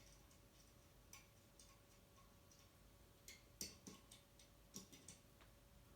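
Near-silent room tone broken by faint, scattered clicks and taps of screws and a screwdriver being handled, with a faint steady hum underneath.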